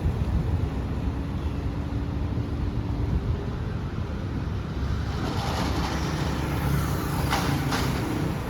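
Road traffic: a steady low vehicle rumble, with two short clicks near the end.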